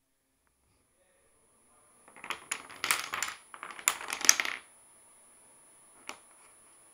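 Rows of wooden blocks set up as dominoes toppling onto a hardwood floor: a rapid clatter of clicks in two bursts lasting about two and a half seconds together, then a single last click about a second and a half later.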